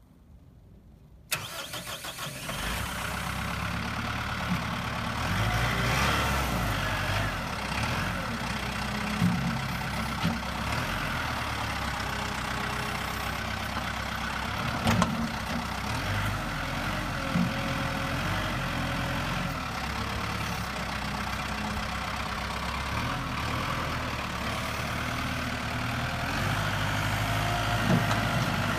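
2015 Kubota M7060D tractor's diesel engine cranking and catching about a second in, then running steadily as the tractor is driven, with a few short knocks along the way.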